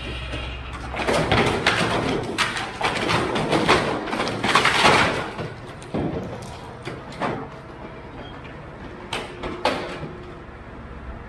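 A metal dumpster being emptied: loose junk slides and crashes out with scraping and banging for several seconds, then a few sharp metal clanks near the end.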